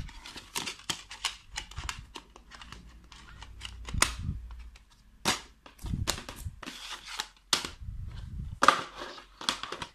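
Plastic DVD cases handled on a wooden table: an irregular run of sharp clicks and clacks as cases are moved and set down, with louder knocks about four seconds in and near the end.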